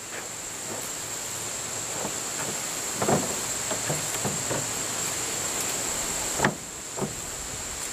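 Paracord rubbing and pulling as it is wrapped around three wooden poles, with the poles knocking now and then on the truck bed they rest on, sharpest about three seconds in and again about six and a half seconds in.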